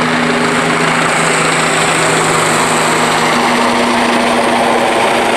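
A loud, steady engine drone with a constant hum.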